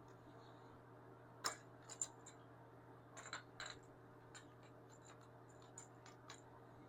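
Near silence over a faint steady hum, with scattered light clicks and taps of small parts being handled, the sharpest two about a second and a half and two seconds in.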